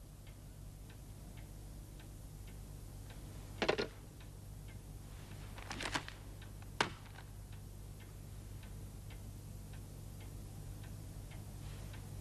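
A clock ticking steadily, about two ticks a second, over a low hum. A few louder knocks from objects being handled come about four seconds in and again around six to seven seconds in.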